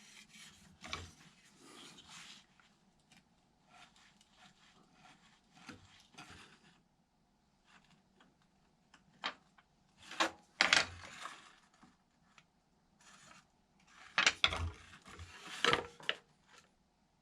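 Hand work at a workbench: intermittent rubbing and scraping, with scattered light clicks and a few sharper knocks, loudest about ten seconds in and again near the end.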